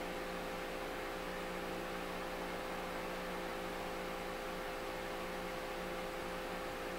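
Steady electrical hum with a faint hiss: room tone. Squeezing the glue bottle makes no sound that can be picked out.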